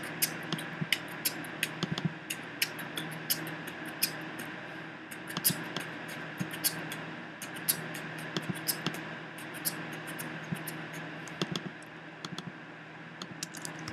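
Sharp clicks at an uneven pace from someone working a computer, over a steady low hum.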